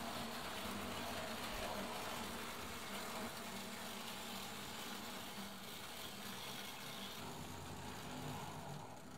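Hornby Dublo model train running on metal track, a steady hum from its electric motor with wheel rumble, slowly getting quieter as it slows on the approach to a red signal.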